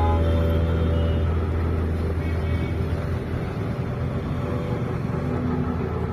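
Auto-rickshaw running along a city road: a steady low engine and road drone heard from inside the open three-wheeler, with traffic around it.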